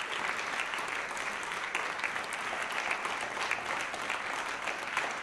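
Audience applauding steadily: many hands clapping in a dense, even patter with no let-up.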